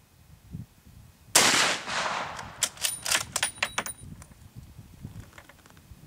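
A single shot from a Dutch M71/78 Beaumont-Vitali rifle in 11x52R, a sharp crack about a second in with a long echo trailing after it. A quick run of sharp clicks follows.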